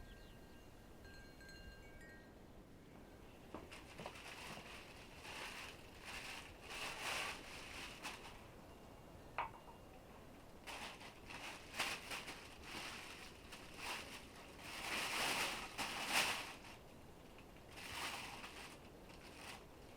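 Quiet, irregular rustling and crunching in short bursts, with a sharp click about nine seconds in.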